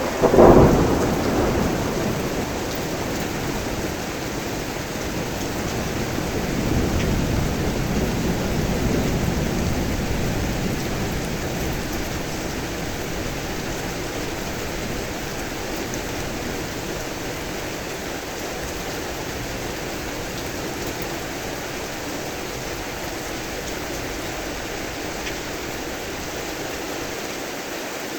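Steady heavy rain with thunder: a sharp thunderclap about half a second in that rumbles away, then a second, softer low roll of thunder that swells and fades a few seconds later.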